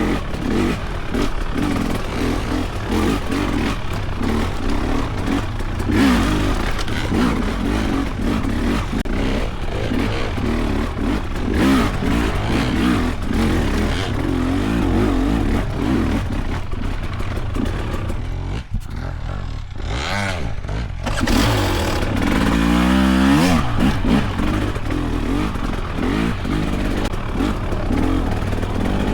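Husqvarna TX300 two-stroke enduro dirt bike engine lugging at low revs, its pitch wavering with the throttle. About two-thirds of the way through it briefly drops off, then revs up in a rising sweep.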